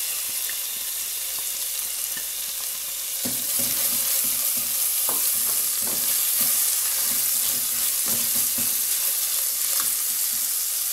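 Tomato sauce with onion and garlic sizzling in oil in an aluminium pan, with a spatula scraping and stirring through it in repeated strokes from about three seconds in.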